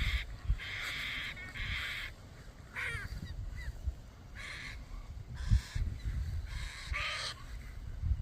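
Young galahs (rose-breasted cockatoos) giving a string of short, harsh screeching calls, about one a second, each under a second long.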